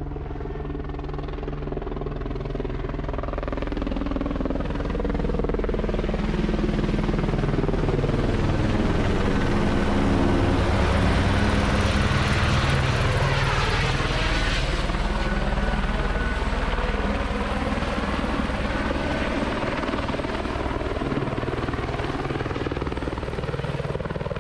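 Helicopter flying low overhead, its rotor and turbine running steadily. The sound grows louder towards the middle, where the pitch of its tones bends as it passes over, then eases off as it moves away to hover low over the field.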